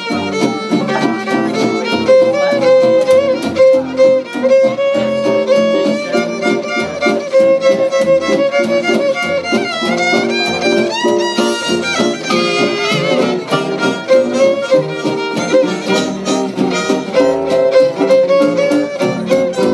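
A live band playing an instrumental break, with a fiddle carrying the melody over a steady rhythmic accompaniment. Around the middle the melody slides up and down in pitch.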